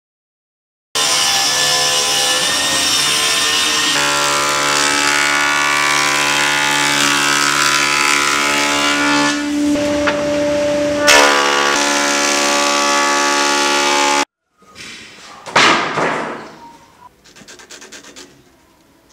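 Thickness planer running with a steady multi-toned whine, its pitch shifting as boards feed through. It starts about a second in and cuts off suddenly after about thirteen seconds. Near the end comes a quieter rubbing stroke of a pencil marking a line along a board.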